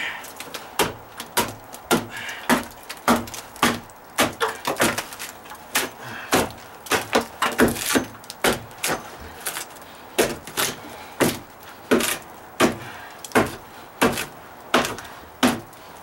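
Steady hammer blows on a chisel, a little under two a second, chipping away rotted OSB plywood along a deck edge.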